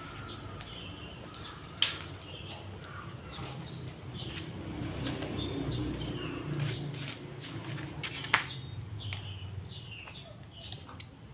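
Birds chirping again and again in the background over a low rumble, with two sharp clicks, about two seconds in and about eight seconds in.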